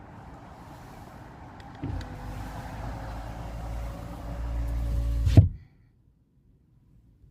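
A motor vehicle's engine running, starting about two seconds in and growing louder, then cut off abruptly.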